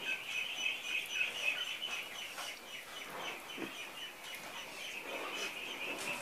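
Background birds chirping steadily and high, with chickens clucking now and then. Soft sounds of cooked chicken being pulled apart by hand come through faintly.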